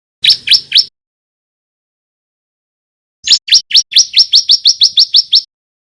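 Bar-winged prinia (ciblek) song: a quick burst of three sharp chirps, then after a pause of over two seconds a rapid run of about fifteen chirps, several a second, each sweeping quickly down in pitch.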